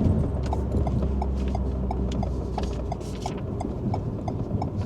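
A car's turn-signal indicator ticking evenly, about three clicks a second, over the low drone of the Alpine A110's engine, which eases off about three seconds in.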